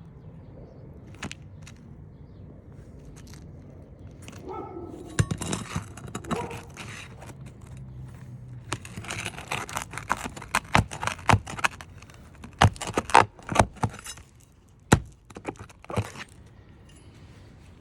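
Flat pry bar working a roofing nail out from under asphalt shingles: scraping and sharp metal clicks and knocks, sparse at first, then coming thick and loud from about halfway through.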